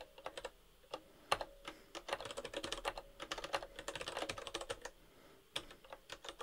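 Typing on a computer keyboard: a few scattered keystrokes, then a fast, steady run of typing for about three seconds, then a few more taps near the end.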